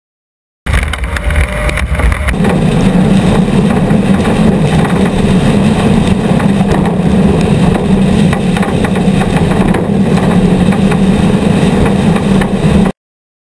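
Racing vehicle engine running hard at a steady pitch, loud and noisy. It starts suddenly under a second in, settles onto a steady note about two seconds in, and cuts off suddenly near the end.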